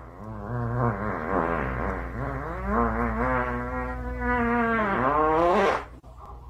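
An animal's long drawn-out howling cry, its pitch wavering up and down, then held steadier and louder, sliding upward and cutting off about six seconds in.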